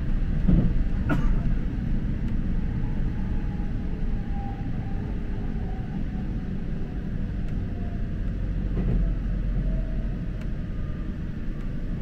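Inside a JR local electric train running on the rails: a steady low rumble of wheels and carriage, with faint whines slowly falling in pitch and a single sharp click about a second in.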